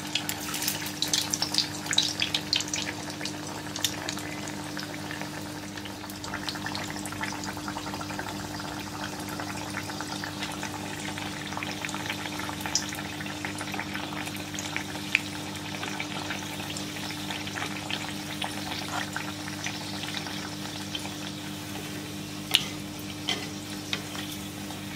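Egg-coated, meat-stuffed pastry deep-frying in hot oil in a cast-iron kadai: a busy sizzle and crackle, heaviest in the first few seconds after it goes into the oil, then settling to a steady fry. A few sharp clicks sound over it.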